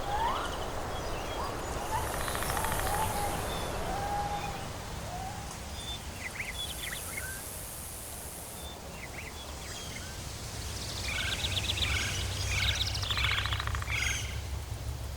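Tropical forest ambience: several birds calling, with gliding whistled notes in the first few seconds and bursts of rapid chirping later, over a high insect buzz that swells and fades and a steady low rumble.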